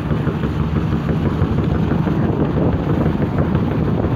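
The MV Uhuru ferry's engines running steadily as the ship maneuvers alongside, a constant low hum, with wind noise on the microphone.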